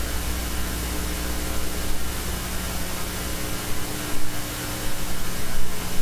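Steady hiss with a low electrical hum underneath; the deepest part of the hum fades about three and a half seconds in.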